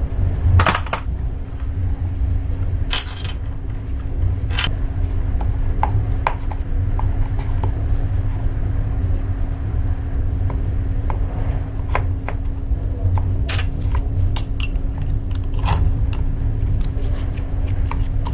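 Scattered light metallic clinks and taps, like tools and small metal parts being picked up and set down, over a steady low hum. The sharpest clinks come about half a second in and again around three, four and a half, thirteen and sixteen seconds in.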